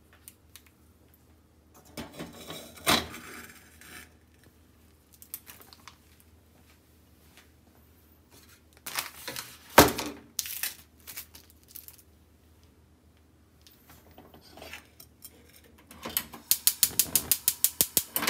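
A saucepan and a frozen ramen block handled on a gas hob: scattered knocks and scrapes, with one sharp metal clank near the middle. Near the end, a gas burner's igniter clicks rapidly, about seven clicks a second, as the burner lights.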